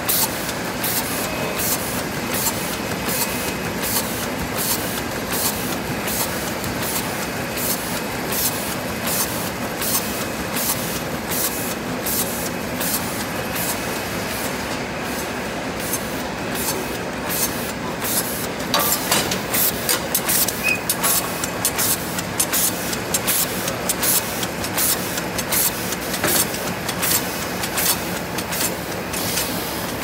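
KS-1000D two-lane automatic T-shirt bag making machine running in production: a steady mechanical drone under a fast, even rhythm of sharp clacking, hissing strokes, about two to three a second, a little louder in the second half.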